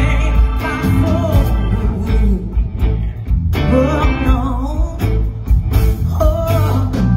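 Live blues band playing: a woman singing over electric guitar, bass, keyboards and drums.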